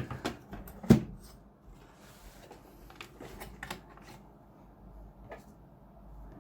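Sharp clicks and knocks of plastic latches and an amplifier's circuit module being worked loose by hand. The loudest knock comes about a second in, followed by a few lighter clicks.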